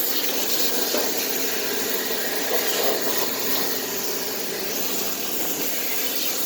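Electric pressure washer spraying: a steady hiss from the water jet, with the pump motor humming underneath.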